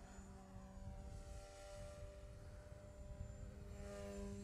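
GooSky S2 200-size RC helicopter flying at high head speed, its direct-drive brushless motors and rotors making a faint, steady hum with several overtones.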